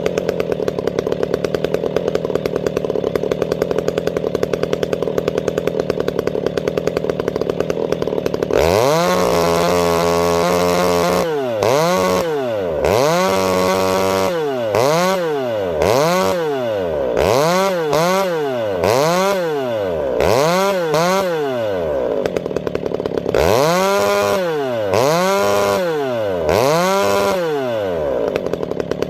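Large two-stroke chainsaw held at a steady high rev for about eight seconds, then revved up and dropped back over and over, roughly once a second, with a brief steady stretch near the end.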